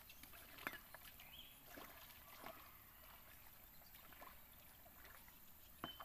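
Near silence with faint paddling in water: soft splashes and trickling as a small bottle raft is paddled along, with a few faint clicks.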